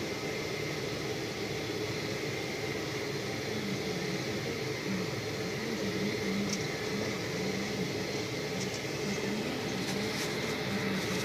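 Tractor engine running steadily under load while pulling a land-levelling scraper, heard from inside the cab as a constant hum with a steady whine. A few light clicks come near the end.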